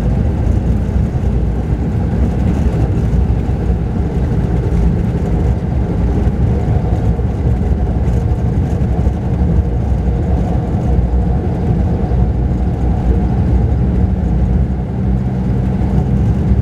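Mercedes-Benz O-500RSD double-decker coach's diesel engine running steadily at cruise, a continuous low drone heard from inside the upper deck of the moving coach.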